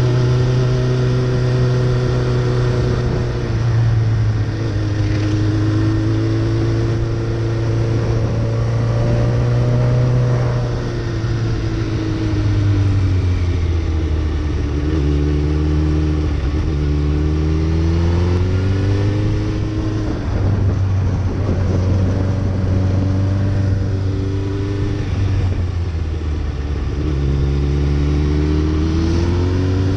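Suzuki Hayabusa's inline-four engine running under way on a winding road, its note rising and falling with the throttle, with several sudden steps in pitch. A steady rush of wind and road noise runs underneath.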